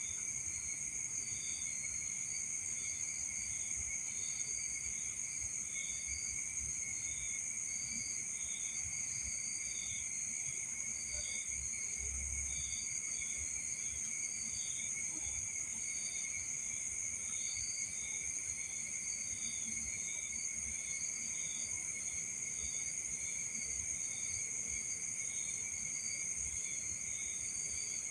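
Night insects, crickets, trilling steadily in several continuous high-pitched layers, with one insect chirping in quick, uneven repeats through them.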